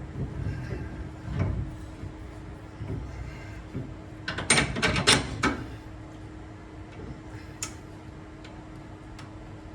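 Bolts and hardware being handled: scattered knocks, then a quick rattle of sharp metallic clicks and clinks about halfway through, with a few single ticks after, over a steady hum.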